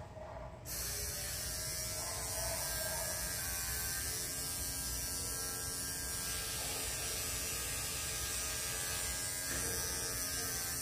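Cordless electric pet clipper switched on about a second in and running steadily with a buzzing motor hum as it trims a schnauzer's coat.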